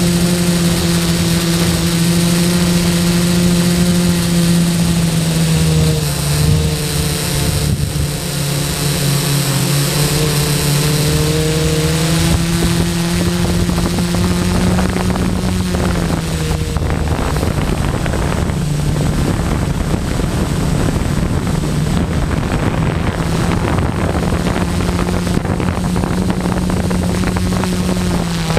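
Quadcopter's electric motors and propellers hovering, heard from the camera on board: a steady buzzing hum whose pitch dips and rises a few times in the middle as the motor speeds change.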